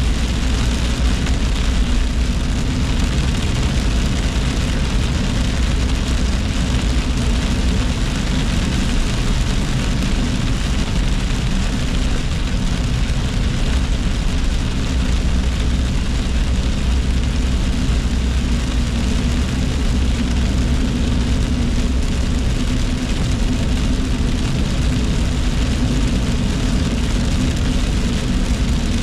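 Steady cabin noise of a car driving on a wet road in heavy rain: a low engine and road rumble with tyre hiss and rain on the windshield.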